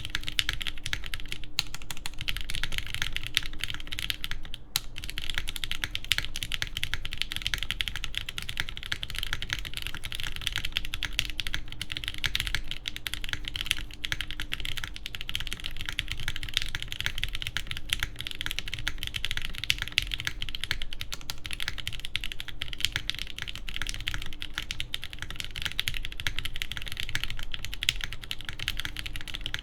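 Continuous fast typing on a TGR Jane v2 ME mechanical keyboard with lubed JWK Banana Split linear switches and a carbon fiber half plate, a dense stream of key clicks with a brief pause about four and a half seconds in.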